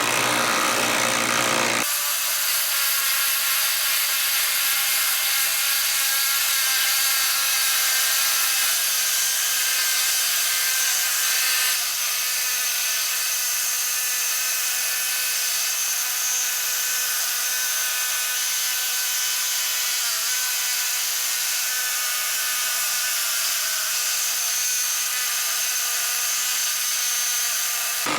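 Cordless impact driver hammering as it drives a fastener into wood through a pilot hole, running without a break and with a steady whine over the rapid impacts.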